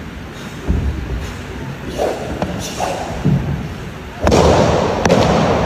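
A series of thuds from a wushu staff routine, the staff and the performer's feet striking the competition carpet, with the loudest impact about four seconds in, followed by a second or so of noise ringing in the large hall.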